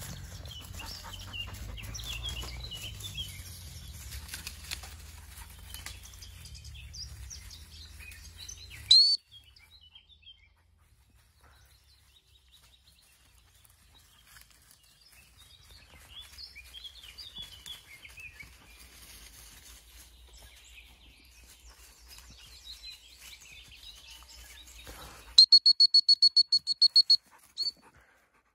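Birds singing in woodland throughout, over rustling for the first nine seconds. A single sharp whistle blast comes about nine seconds in. Near the end a gundog whistle gives a rapid run of high pips, the loudest sound, recalling a springer spaniel.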